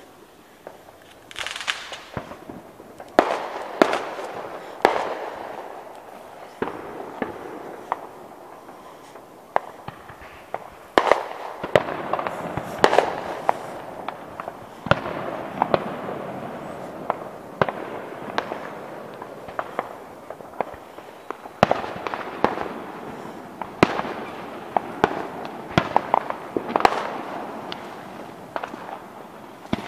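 Fireworks going off: an irregular run of sharp bangs, single and in quick clusters, each trailing into an echoing rumble.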